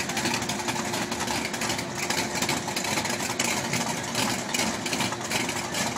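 Drag-race car engine idling, a steady, uneven rumble with a faint steady hum underneath.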